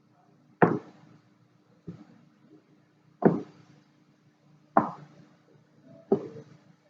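A knife chopping down through a sheet of rolled dough and knocking on the board beneath: five cuts, about one every second and a half, the second one faint.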